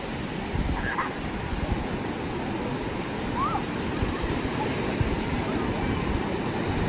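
Pacific Ocean surf breaking and washing up on a sandy beach, a steady rush of waves. Faint voices come through briefly once or twice.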